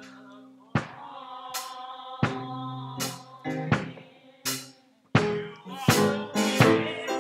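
Church band music starting up: held keyboard chords, then drum hits and struck chords coming in, about one or two a second, growing louder near the end.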